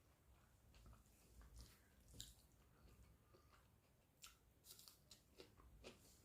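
Faint close-up eating sounds of rice and egg curry being chewed: soft wet mouth clicks and smacks, a few of them sharper about 2 seconds in and between 4 and 6 seconds.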